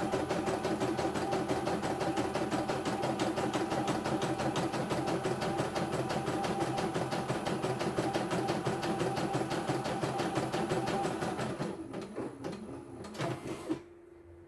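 CNY E900 computerized embroidery machine stitching a design, a rapid, even rhythm of needle strokes that slows and stops about twelve seconds in as the design finishes. A few short mechanical noises follow, then a faint steady hum.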